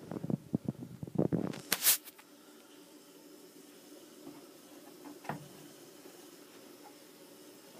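Handling noise from a handheld camera: a cluster of bumps and rubbing for the first two seconds, ending in a sharp click. After that comes the low steady hum of saltwater aquarium pumps, with one more light knock about five seconds in.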